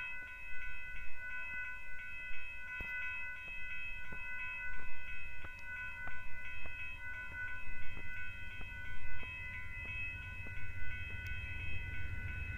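Railroad grade-crossing warning bell ringing steadily at about two strikes a second while the gates are down. A low rumble of the approaching train builds near the end.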